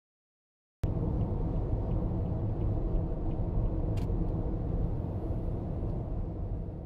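Steady low rumble of road and engine noise inside a car's cabin at expressway speed, starting abruptly about a second in after dead silence.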